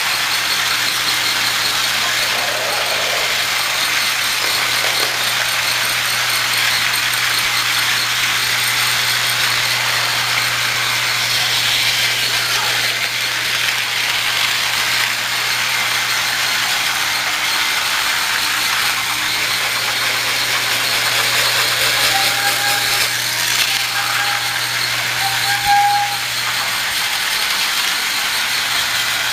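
Battery-powered Thomas & Friends TrackMaster toy trains running on plastic track: a steady whir of small motors and gears with a constant rattle. A few short tones come about three quarters of the way through.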